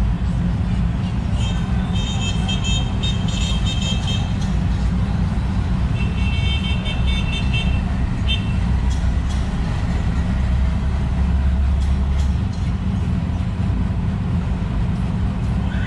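Steady low rumble of street traffic, a little louder about ten seconds in. Two spells of high twittering ride on top of it, one about two seconds in and one about six seconds in.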